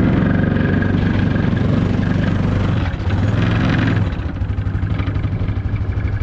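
ATV engine running under load while towing a trailer. About four seconds in the revs drop and it settles to a lower, pulsing run.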